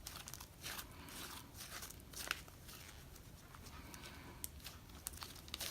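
Fluffy clay slime with strawberry chunks being handled: faint, irregular soft crackles and small sticky pops and clicks.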